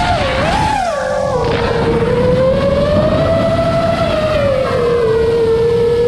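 iFlight Chimera7 FPV quadcopter's motors whining in flight, the pitch dipping and rising with throttle in the first second or so, then holding lower with a slight swell in the middle, over a steady rushing noise.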